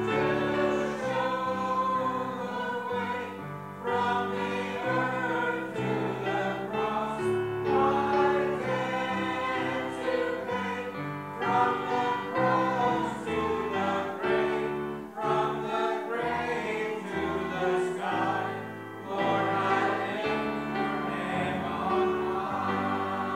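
Two men singing a gospel hymn together with musical accompaniment.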